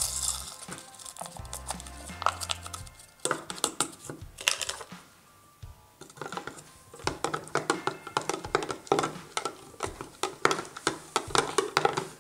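Plastic spoon stirring coffee and water in a plastic cup: quick runs of small clicks and scrapes against the cup, with a short pause partway through. Background music plays throughout.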